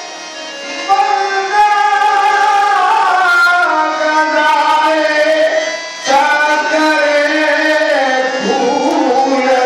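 Qawwali: voices singing long, held, ornamented notes over tabla, with a brief lull at the start and another about six seconds in.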